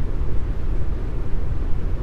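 Steady deep brown noise: an even, unbroken hiss weighted heavily toward the bass and fading toward the highs, with no changes or events.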